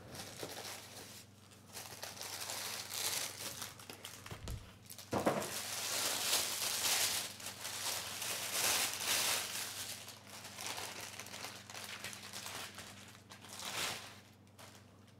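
Plastic packing wrap and bags crinkling and rustling in uneven bursts as a part is unpacked from a cardboard box, loudest in the middle, with a single knock about five seconds in.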